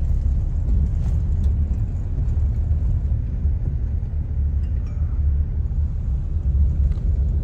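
Steady low rumble of a Toyota car driving, heard from inside the cabin.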